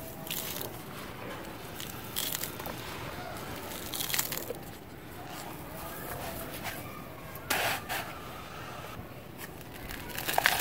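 Dry, powdery cement mix crumbling and sifting through hands and pouring from a cup mould, a steady hiss of falling powder broken by several short crunches; the loudest pour comes past the middle.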